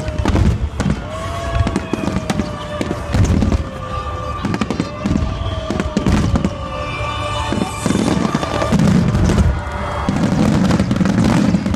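Aerial fireworks shells bursting in quick succession, a dense run of booms and crackling. It thickens into a steady low rumble of overlapping bursts for the last couple of seconds.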